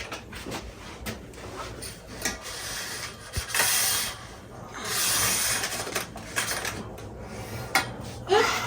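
Curtain being taken down from its rail: fabric rustling and rubbing, with many small clicks and knocks, and two longer swishes of cloth about three and a half and five seconds in.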